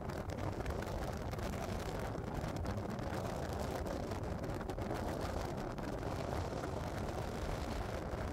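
A thunderstorm's steady low rumble, with no sharp thunderclap.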